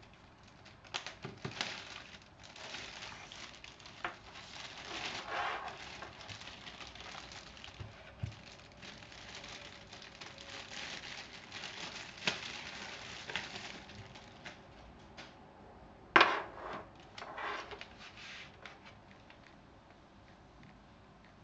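Plastic and cardboard packaging rustling and crinkling as it is handled, with scattered sharp clicks and knocks; the loudest knock comes about two-thirds of the way through.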